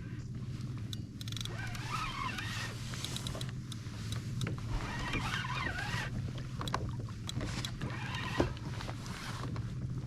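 Water lapping and sloshing against a kayak hull, with scattered small clicks and knocks.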